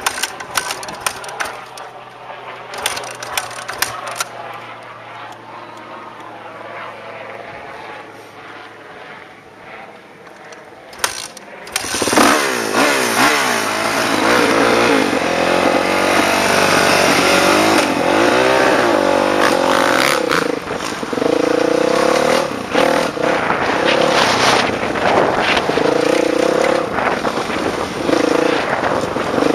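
Dirt bike engine idling with a few sharp clicks. About twelve seconds in it revs up loudly and pulls away, the revs rising and falling over and over.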